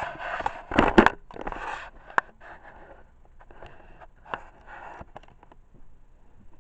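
Handling noise from a phone being gripped and repositioned: fingers rubbing and scraping on it, with a loud knock about a second in and a sharp click a little after two seconds.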